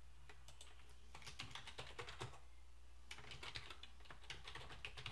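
Typing on a computer keyboard: two quick runs of keystrokes with a short pause between them, about two and a half seconds in.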